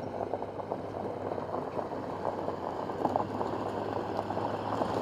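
Pickup truck towing a loaded flatbed trailer slowly up a gravel driveway: tyres crunching and crackling on gravel over a steady low engine hum, slowly growing louder as it comes closer.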